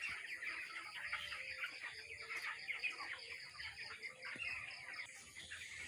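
A flock of three-week-old broiler chicks chirping and peeping, many short calls overlapping continuously.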